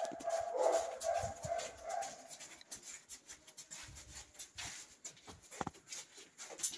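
A dog whining for the first two seconds, then scattered knocks and rattles from a wire dog crate being carried.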